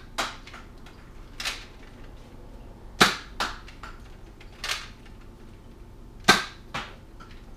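Spring-powered X-Shot Rapid Fire toy dart pistol being primed and fired twice: each shot is a sharp snap, followed by a lighter click about half a second later. Before each shot there is a softer, longer stroke as the pistol is primed, which also turns its cylinder.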